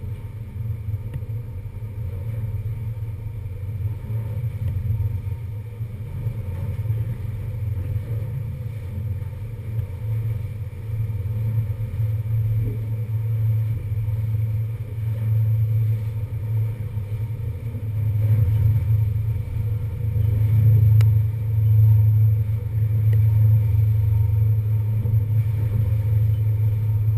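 Low, continuous rumble of a passenger ferry under way: engine drone mixed with wind buffeting the camera on the open deck. It grows louder about two-thirds of the way through.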